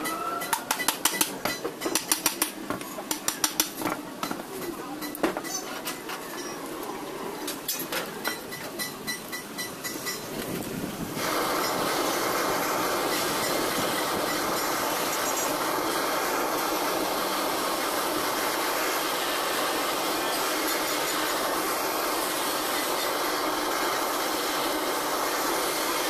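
A hammer strikes the metal housing and shaft of an old ceiling fan motor many times in quick, irregular blows. About eleven seconds in, a handheld blowtorch on a gas canister starts up and burns with a steady hiss while it heats the fan's housing.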